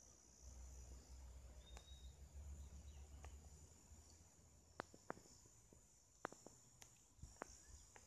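Faint, steady high-pitched trilling of insects, with a low rumble in the first half and a few sharp clicks in the second half.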